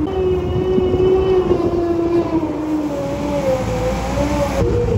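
Fat Truck all-terrain vehicle with its four-cylinder Caterpillar engine running as it drives over snow, giving a steady whine over a low rumble; the whine drops a little in pitch about two seconds in.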